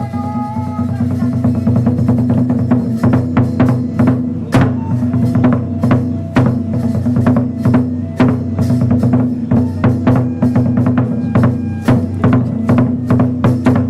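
Kagura music, led by drums beaten in a quick, steady rhythm over a steady low tone, with a few gliding pitched notes at the very start.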